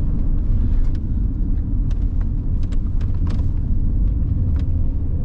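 Car cabin noise while driving: a steady low rumble of the engine and tyres on the road, with a few faint clicks.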